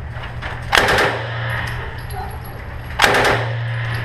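Two short bursts of fully automatic rifle fire, each a rapid string of a few shots, about two seconds apart, ringing on afterwards in the indoor range.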